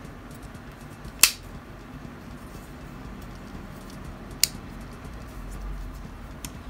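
A small plastic Mini 4WD chassis handled in the hands: light handling noise with two sharp plastic clicks, one about a second in and another about three seconds later.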